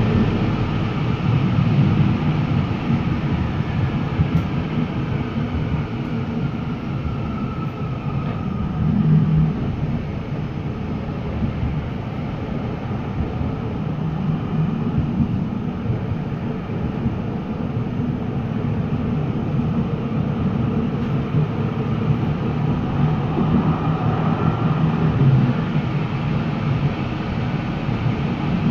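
Interior running noise of a Hannover TW6000 light-rail car under way: a steady low rumble of wheels on rails. A faint whine rises and falls in pitch a few times.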